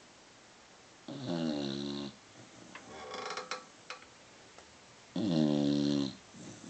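A beagle snoring in its sleep: two loud, pitched snores about four seconds apart, each about a second long and sliding down slightly in pitch, with a softer, crackly breath and a few clicks between them.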